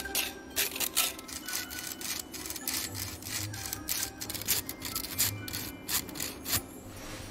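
Rapid, irregular sharp clicks and taps, several a second, over a faint steady hum.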